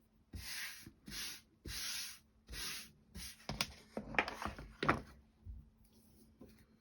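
Hands working small wooden clock-kit parts: four short rubbing strokes, then a run of light clicks and taps as pieces are handled.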